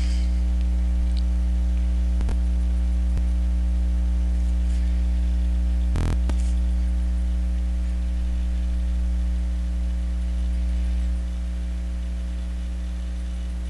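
Steady electrical mains hum with a ladder of overtones, picked up by the recording, with one sharp click about six seconds in.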